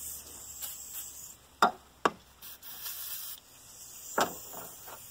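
Aerosol can of carburetor cleaner hissing as it is sprayed into the engine to clean it out, stopping after about three seconds. Sharp knocks cut through it: two close together about a third of the way in and a louder one near the end.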